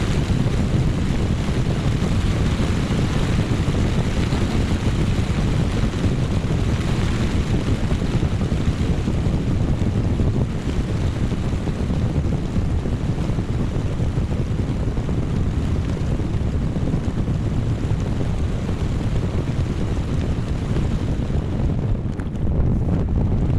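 Strong gusting wind from a thunderstorm's microburst outflow buffeting the microphone in a steady, heavy rumble, easing briefly near the end.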